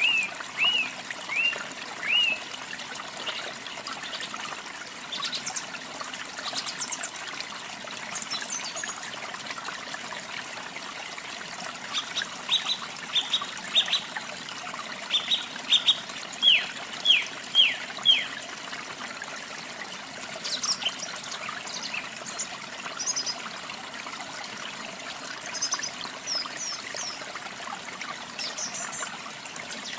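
Water trickling steadily with songbirds calling over it: a few short falling whistled notes at the start, a louder run of sharp repeated notes in the middle, and higher, fainter chirps later.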